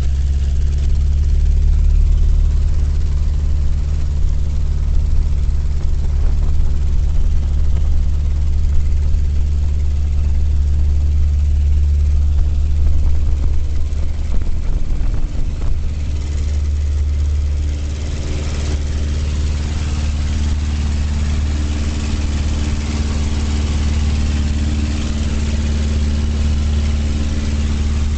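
Single-engine light aircraft's piston engine and propeller running steadily at takeoff power, heard inside the cabin during the takeoff roll and climb-out. The level drops slightly about two-thirds of the way through.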